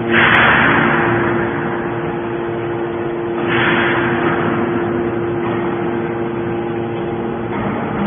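Hydraulic baler running: a steady hum from its power unit, with two rushing surges of noise, one at the start and one about three and a half seconds in, each fading over about a second.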